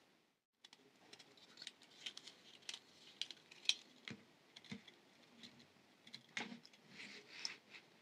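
Thin brass jewelry wire and its spool being handled: quiet, irregular light clicks and scrapes, the sharpest about halfway through, after a brief dropout at the very start.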